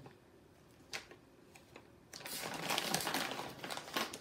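Kettle Brand potato chip bag crinkling as its tightly sealed top is pulled apart by hand, a couple of light clicks first, then a dense run of crackling from about halfway through that lasts about two seconds.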